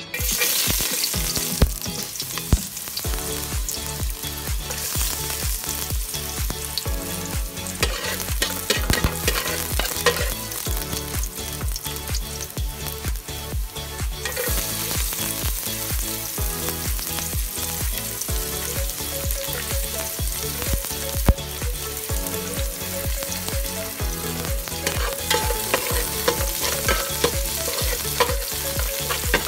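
Chopped garlic, and then onions, sizzling in hot oil in a stainless steel pan while a spatula stirs them. The sizzle gets stronger about halfway through.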